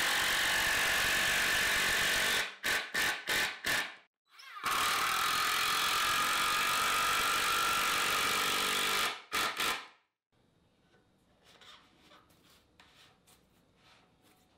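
Cordless drill-driver driving screws into plywood: two long steady runs of the motor's whine, each ended by a few short trigger bursts as the screw seats. The drill stops about ten seconds in, leaving only faint taps and handling sounds.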